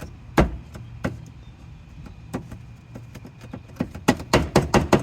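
Clicks and knocks of hands working a tool and plastic parts at a car's wheel-well trim: a few separate knocks, then a quick run of clicks near the end, over a low steady hum.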